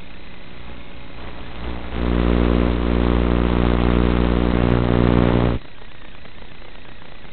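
Loud, steady buzz at one constant pitch over a hiss. It starts about two seconds in and cuts off suddenly some three and a half seconds later. It comes as the analog FPV video link breaks up, so it is radio interference on the link's audio.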